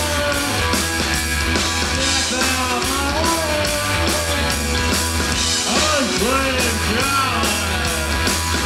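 Post-punk rock band playing live at full volume: a male vocalist singing close into the microphone over bass, guitar and drums, with a steady driving beat.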